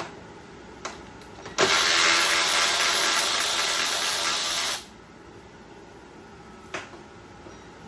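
Cordless power driver fitted with a 10 mm socket spinning out a motorcycle seat bolt, running steadily for about three seconds and then stopping. A few light clicks of tool and metal sound before and after it.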